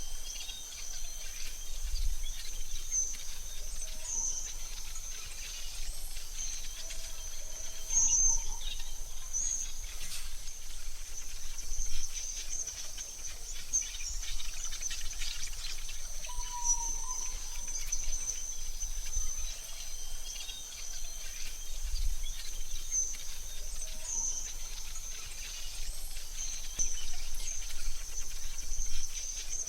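AI-generated forest ambience: a steady high insect drone with a few short bird chirps scattered through it, over a faint low rumble.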